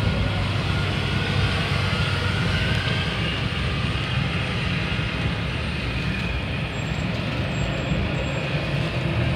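A moving bus's engine and road noise, heard from inside the cabin: a steady, even low drone.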